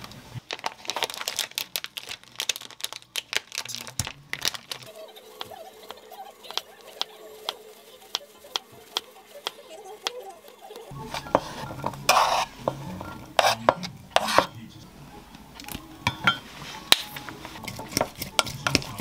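Kitchen prep sounds: a plate set down on the counter, a serrated knife cutting cooked chicken breast on a wooden cutting board, then a spoon stirring diced vegetables in a glass mug. Many small clicks, taps and scrapes.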